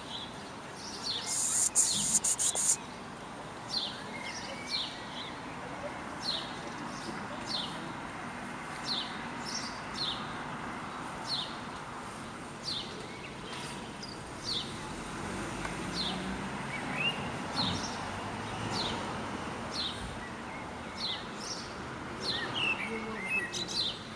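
A small bird calling over and over, a short high chirp that falls in pitch, about once a second, over a steady background hiss. A quick run of sharp clicks sounds about two seconds in.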